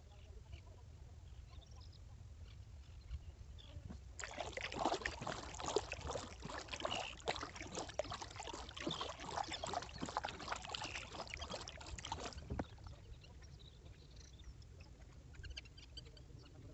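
Kayak paddle dipping and splashing in the water, with dripping off the blades, in a dense run of watery crackles. It starts about four seconds in and stops abruptly about twelve seconds in, leaving a low steady rumble.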